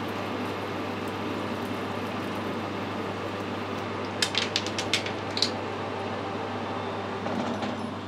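Metal lathe running with a steady hum while a parting tool cuts through a spinning aluminium bar lubricated with WD-40. A quick run of sharp clicks comes about four to five seconds in.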